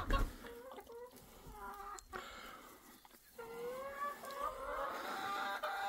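Hens clucking and calling: a few short calls, then a longer drawn-out call a little past halfway that runs into more calling. A brief bump at the very start.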